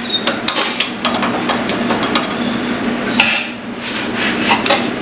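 Wrench and socket working a seized bolt loose on a car engine: irregular sharp metal clicks, knocks and scraping as the freed bolt turns.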